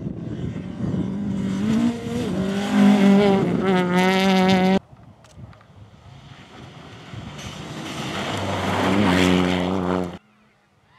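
Two Peugeot 208 rally cars at full throttle on gravel, one after the other: the engine revs high and climbs in pitch over a hiss of gravel under the tyres. Each pass is cut off abruptly, the first about halfway through and the second near the end, leaving only faint high chirps.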